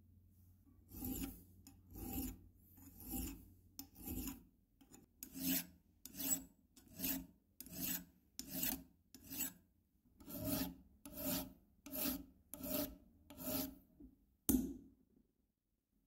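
Hand metal file rasping back and forth over a small metal key blank clamped in a vise, shaping a new padlock key: about fifteen even strokes, roughly one every three quarters of a second, then a single sharp knock near the end.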